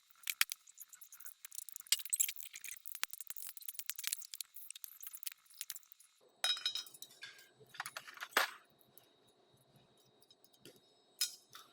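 Light metallic clinks and taps of steel tools and parts being handled. About six seconds in, a low steady hum joins, with a few sharper knocks.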